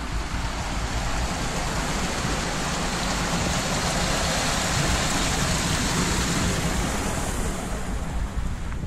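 Water rushing and churning into a concrete box: a steady hiss that grows louder toward the middle and eases off near the end.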